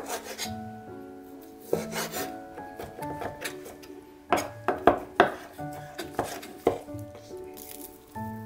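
Chef's knife chopping cooked chicken breast on a wooden cutting board: irregular knocks of the blade on the board, with a quick run of several loud chops about halfway through. Background music plays throughout.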